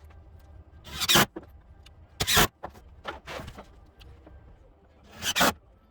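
A power drill driving screws into a plywood subfloor, running in four short bursts, each under half a second.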